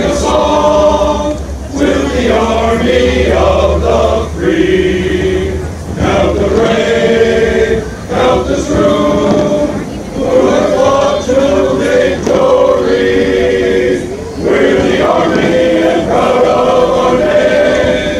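Men's chorus singing in harmony, in phrases broken by short pauses for breath.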